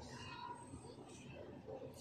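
Quiet supermarket background: faint distant voices of shoppers over a low steady hum.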